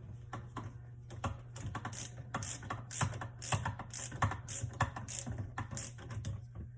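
Screwdriver tightening the screws of the cable clamp on the bottom of an InSinkErator Badger 5 garbage disposal: a run of sharp, irregular metal clicks, about two or three a second.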